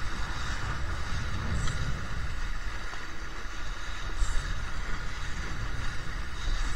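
Strong wind buffeting the microphone over a steady rush of water past a sailing dinghy's hull as it sails in a 23-knot breeze.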